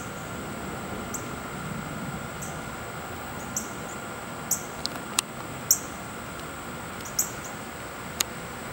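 Male ruby-throated hummingbird giving short, very high chip notes, about nine in all at irregular intervals, coming more often in the second half.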